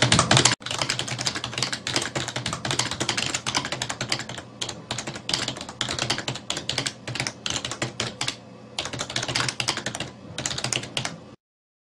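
Keyboard typing sound effect: rapid clicking of computer keys in runs with short pauses between words, cutting off suddenly near the end.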